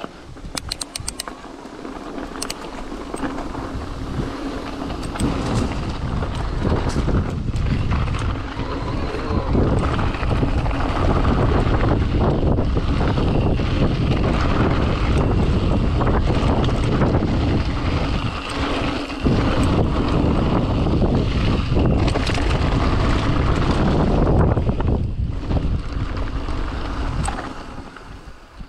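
Wind buffeting the microphone, mixed with tyre and bike noise from a mountain e-bike riding a trail. The noise grows louder over the first several seconds, stays high, and eases off near the end, with scattered clicks and rattles.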